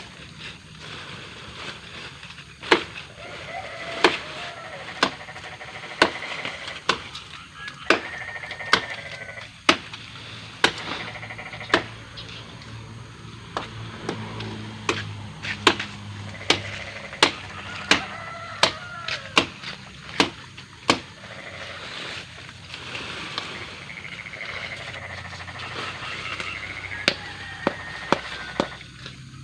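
A long series of sharp knocks, irregular at about one or two a second, over a steady background hum.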